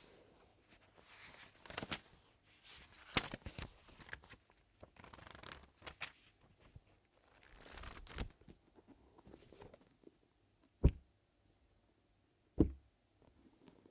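Pages of a thick paperback book being turned and flipped by hand, a string of uneven paper rustles and flicks. Near the end come two sharp thumps about a second and a half apart as the book is closed and handled.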